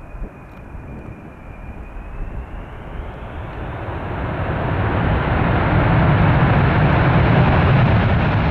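Boeing 747 freighter's four jet engines on approach: a thin high whine over a low rumble, growing steadily louder from about three seconds in as the jet comes in low, and loudest near the end.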